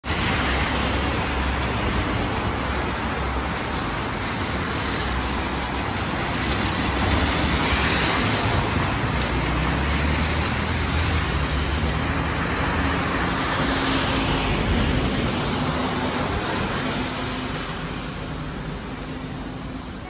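Strong wind and rain: a steady rushing hiss, with wind rumbling on the microphone and swelling now and then.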